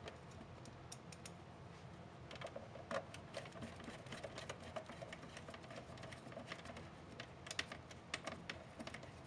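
Quiet, irregular small clicks and scrapes of a screwdriver tip working a small screw into a plastic flashlight handle, a screw that is reluctant to go in.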